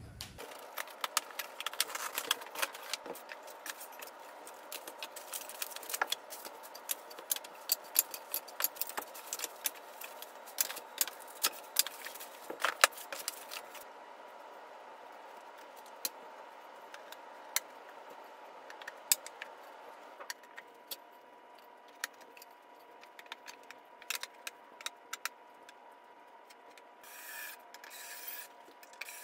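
Handling noise from assembling a flat-pack wooden bench: many quick knocks, clicks and scrapes as panels and loose hardware are moved and set down, busy through the first half and sparser later.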